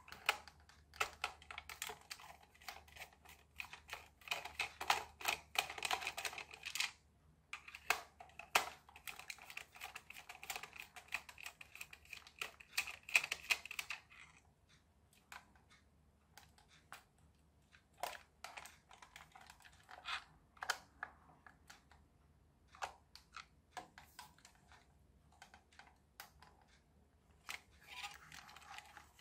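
Screwdriver turning out screws from the plastic chassis of a 1985 Nikko Toyota Hi-Lux RC truck: a dense run of small clicks and scratching, broken by a short pause, for about the first fourteen seconds, then scattered light clicks and taps as the plastic parts are handled.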